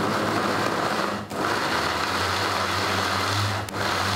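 Small electric food chopper running at full speed, grinding burger-bun pieces into fine crumbs, its motor dipping briefly twice.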